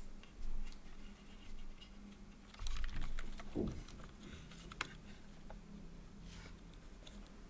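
A few scattered clicks and taps from a mechanical keyboard, not a steady typing rhythm, with a louder cluster and a low thump about three seconds in and one sharp click a little later.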